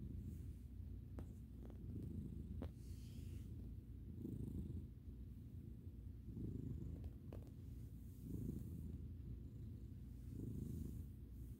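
An American Ringtail cat purring steadily while being stroked. The low purr swells and eases about every two seconds as the cat breathes in and out.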